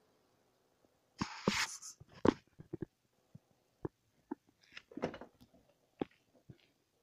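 A scatter of knocks and taps, about a dozen, and two short rustling bursts, the first the loudest, as a young cat climbs about on a desk and a person's lap, with handling noise from the phone filming it.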